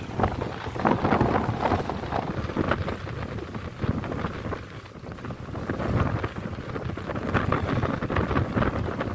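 Strong wind buffeting the microphone in gusts, over choppy sea washing around a small wooden fishing boat.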